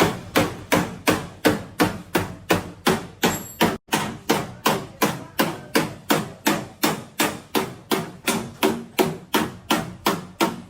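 Hammer blows on a car's sheet-metal body panel at a steady pace of about four a second, panel beating out accident damage, with a brief break about four seconds in.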